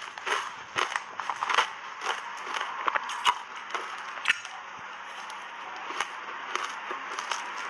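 Shaved ice crunching as it is bitten and chewed close to a clip-on microphone: quick sharp cracks for the first three seconds or so, then a denser, steadier crackle.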